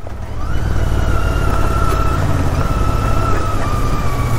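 Royal Enfield Interceptor 650's parallel-twin engine running steadily, a low rumble with a thin steady whine over it.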